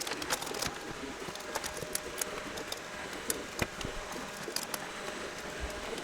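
Scattered small clicks and taps of hand tool work: a screwdriver driving down a CPU cooler's spring-loaded mounting screws, with metal and plastic parts knocking as they are handled.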